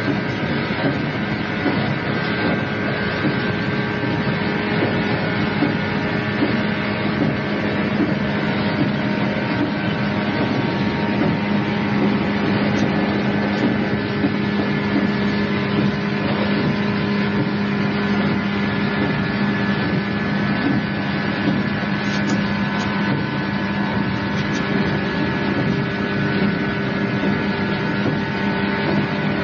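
Inside the passenger car of an electric train running at steady speed: a constant running rumble with a steady low hum, recorded on cassette tape.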